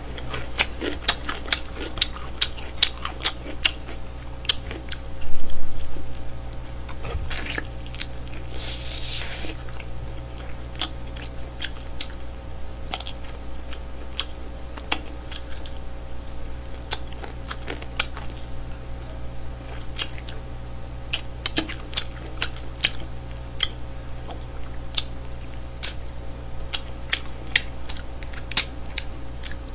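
Close-miked chewing and mouth clicks as pieces of smoked chicken are torn off and eaten, with a steady low hum underneath. One louder sound stands out about five seconds in.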